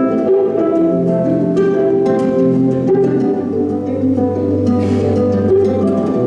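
Instrumental introduction of a song: a sequence of plucked-string notes over held chords and a sustained low bass, with no voice yet.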